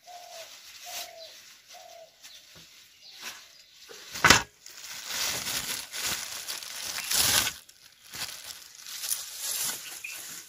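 Black plastic bag rustling and crinkling as raw chicken is handled out of it, with one sharp knock about four seconds in. A bird calls three short notes about a second apart near the start.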